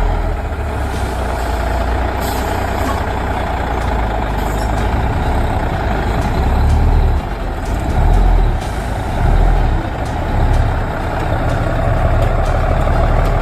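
Heavy logging truck's diesel engine running under load, a deep rumble that swells louder several times in the middle.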